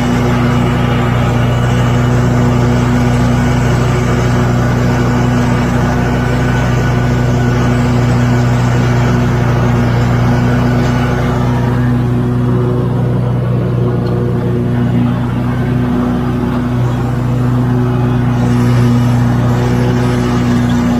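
Walk-behind gasoline lawn mower engine running steadily while mowing, a constant even hum with no change in pitch.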